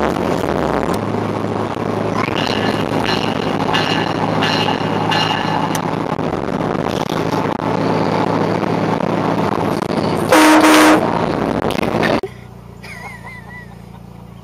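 Electronic bell on a 2006 Scion xB ringing in a run of quick high dings, then one short loud blast of the car's aftermarket train horn about ten seconds in, over steady road noise that drops away near the end.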